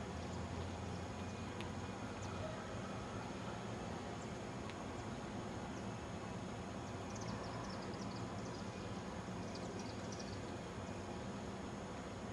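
Steady, faint low rumble of outdoor background noise, with a few faint high bird chirps about seven to ten seconds in.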